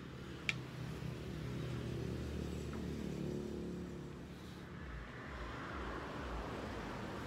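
A motor vehicle engine running, a steady low hum whose pitch shifts a little, with a single sharp click about half a second in.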